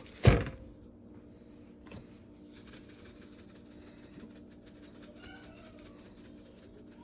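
A single loud knock about a third of a second in, like a hard object set down on a kitchen counter, then low room noise with a steady faint hum and a few short, faint high-pitched calls about five seconds in.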